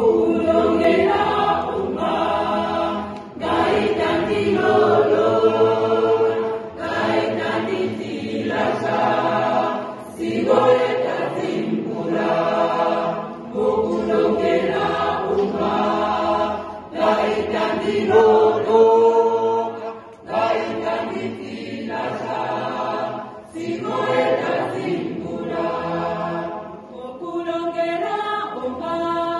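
Large mixed choir of women's and men's voices singing together in phrases, with short breaks between them.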